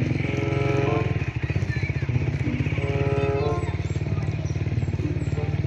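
Motorcycle engine running steadily while riding, heard close up from the bike itself, with an even low pulsing from the engine.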